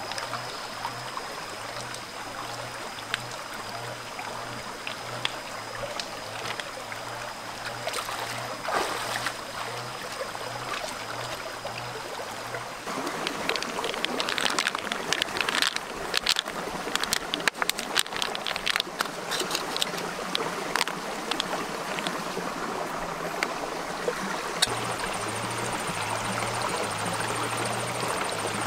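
Shallow stream running over rocks, with a steady high-pitched tone over it for the first half. After a change in the sound about halfway through comes a run of sharp clicks and knocks. A higher steady tone sets in near the end.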